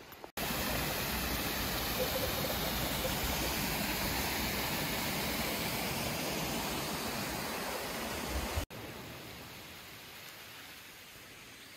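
Small mountain stream cascading over boulders: a steady, loud rush of water that starts abruptly just after the start and cuts off about nine seconds in. A fainter, steady rush of shallow stream water follows it.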